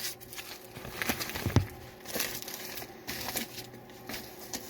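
Paper wrapping crinkling and rustling as fast-food wraps are handled, in short irregular rustles, with a single knock about a second and a half in.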